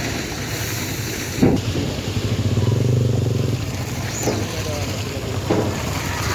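Truck engine running steadily, growing louder about halfway through, with a few short knocks.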